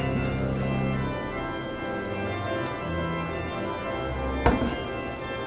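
Background music of slow, held chords that change every second or so, with one sharp knock about four and a half seconds in.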